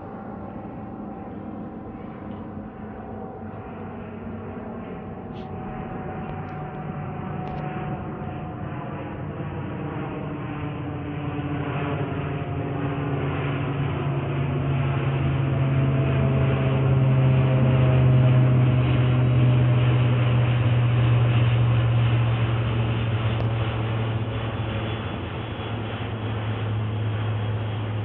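CASA C-295MW twin turboprop, its Pratt & Whitney PW127G engines and propellers droning as it flies past. It grows steadily louder to a peak about two-thirds of the way through, then eases off, with the propeller tones slowly falling in pitch.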